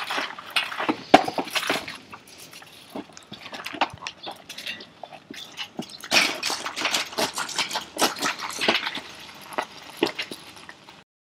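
Irregular rustling and clattering, with many sharp clicks and knocks, busiest near the start and again after about six seconds, then cutting off just before the end.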